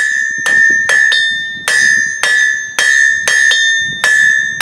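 Hand hammer striking a hot mild-steel bar on an anvil, about ten blows at roughly two a second, the anvil ringing brightly between blows. The bar is being fullered over the anvil's rounded edge to draw a fast taper.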